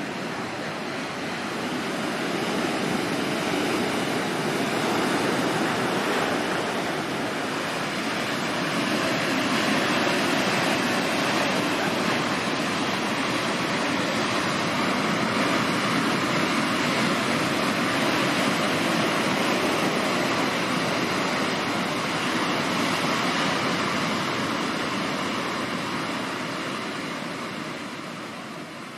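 Heavy storm surf breaking on the shore: a continuous rush of crashing waves and spray that rises and eases slowly, fading out near the end.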